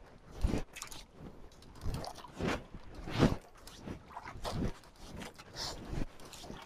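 Irregular knocks, scrapes and rustles, about one or two a second, from fishing gear and line being handled aboard a small fishing boat.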